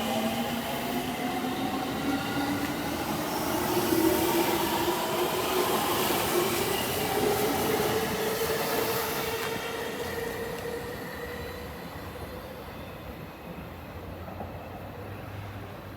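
JR 313 series electric multiple unit pulling away from a station and picking up speed. The wheels running over freshly ground rail give off a ringing hum that rises in pitch as the train speeds up, then fades from about ten seconds in as the train moves off.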